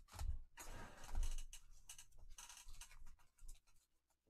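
Trading cards in rigid plastic top loaders being shuffled and handled by gloved hands: irregular scratchy rustling with light plastic clicks, fading out near the end.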